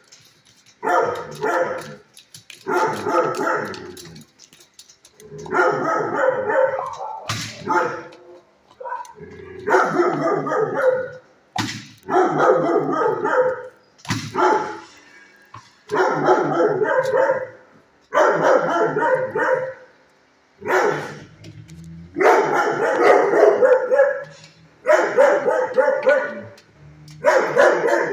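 Dogs barking in loud, repeated bursts, each a second or two long, coming about every two seconds.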